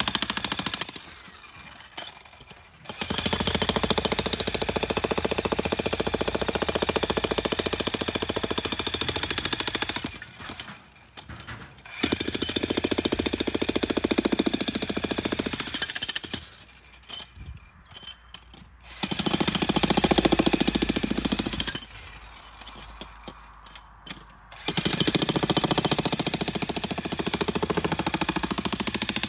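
Bosch Brute Turbo electric breaker hammer pounding and breaking up concrete with a fast, even hammering rattle. It runs in stretches of several seconds and stops briefly between them, four times.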